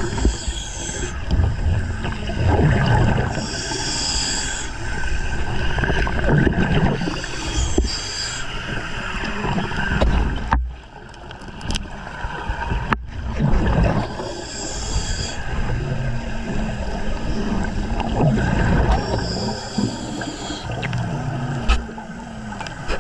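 Underwater sound of a diver breathing through air gear: bubbling and gurgling exhalations in bursts every few seconds over a steady rumble.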